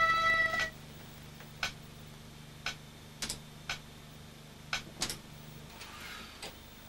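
A group of recorders holds a final note together and cuts off about a second in. After that a click track ticks about once a second, with a few extra light clicks, over a low steady hum.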